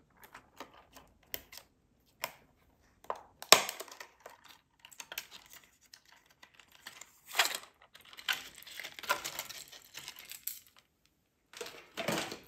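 Packaging of a hard-bodied fishing lure being handled and opened: scattered clicks and crinkling, with a sharp click about three and a half seconds in and longer crinkling stretches in the second half.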